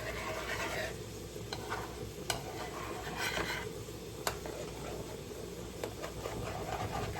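Cheesy pasta being stirred in a pan on the stove, a utensil scraping the pan over a low sizzle, with two sharp taps of the utensil against the pan about two and four seconds in.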